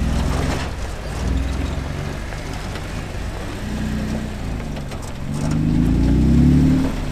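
Off-road Jeep's engine working under load on a rock climb, the revs rising and falling with the throttle. It revs up to its loudest about five to six seconds in, then drops back.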